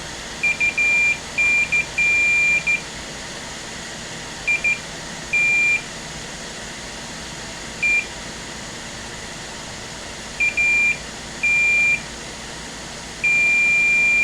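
Multimeter continuity beeper sounding a single high tone on and off irregularly, in short chirps and holds of up to about a second and a half, as the probes touch two pins on a laptop motherboard. The beep means the pins read as connected, which may be a solder bridge, though the pins may also be connected by design.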